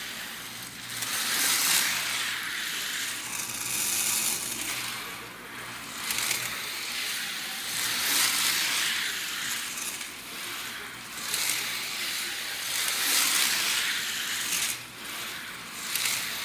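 TYCO HO slot-car trains running around the track: small electric motors whirring with the wheels and pickups rattling on the rails, swelling and fading every couple of seconds as the trains pass close by and go round.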